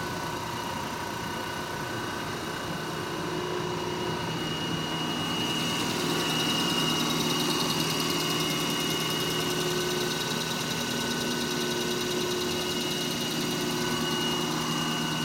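1958 Monarch heavy-duty engine lathe running under power, its headstock spindle turning at about 50 RPM, driven by a 30 horsepower electric motor: a steady, smooth-running mechanical hum with several held tones, growing a little louder about six seconds in.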